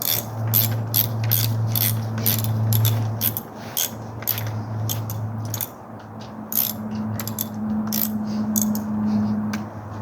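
Ratchet wrench clicking in short runs, a few clicks a second, as bolts are tightened down, over a steady low hum.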